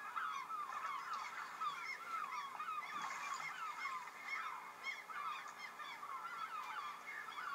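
A flock of geese honking: many short calls overlapping without a break.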